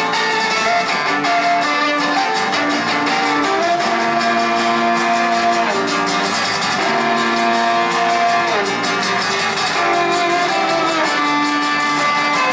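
Violin and acoustic guitar duet: a bowed violin plays a melody in long held notes over a steadily strummed acoustic guitar, both amplified through a small portable amplifier.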